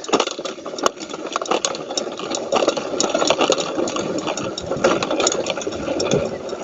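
Continuous rattling and clattering from a bike being ridden over a dirt trail, with many sharp knocks.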